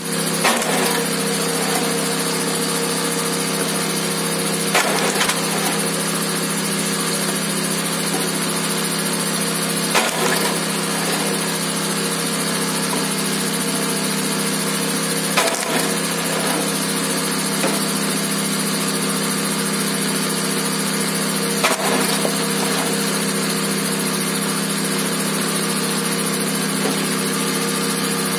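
Gasoline kinetic log splitter's small engine running steadily, with five sharp cracks about five to six seconds apart as the ram drives through a log each time.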